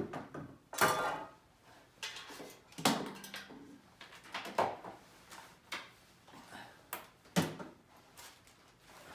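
Metal desk-frame parts being handled during assembly: a series of irregular clanks and knocks, the loudest about a second in with a brief metallic ring.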